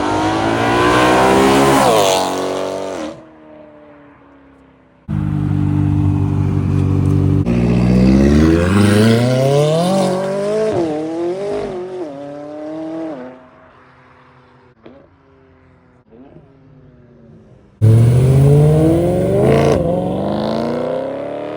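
Car engines revving and accelerating hard, their pitch climbing, with a drop in pitch like gear changes partway through. The sound comes as three separate runs, each starting abruptly, the middle one the longest.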